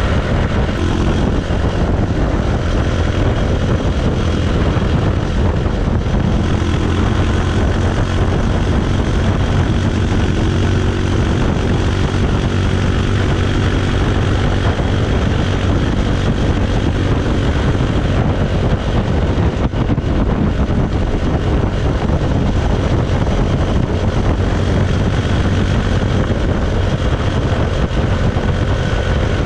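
Bajaj Pulsar 220's single-cylinder engine and exhaust running steadily at an even speed, a low drone with a broad rushing noise over it.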